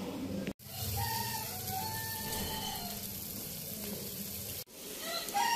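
Chicken pieces frying with spices in an aluminium pan on a gas stove, sizzling as a spatula stirs them, with a rooster crowing in the background. The sound drops out abruptly twice, about half a second in and near the end.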